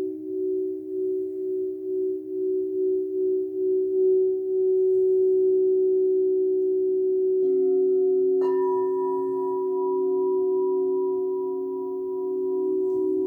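Crystal singing bowls ringing in long sustained tones that pulse about twice a second at first, then hold steady. A lower tone joins past the middle, and a moment later another bowl is struck and adds a higher ringing tone.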